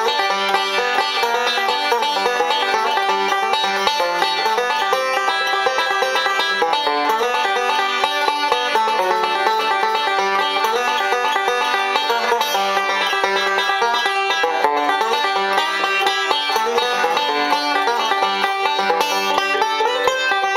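A 1968 Gibson Bowtie five-string resonator banjo fingerpicked solo: a fast, unbroken stream of bright plucked notes.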